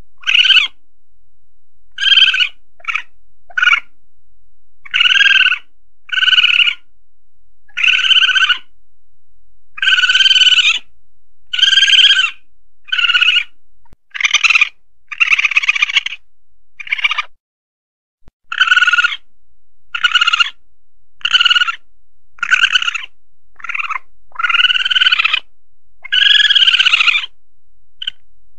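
Asian palm civet (musang pandan) calls used as a hunting lure: a long run of short, high-pitched cries, roughly one every second or so, a few of them drawn out longer, with a brief gap a little past halfway.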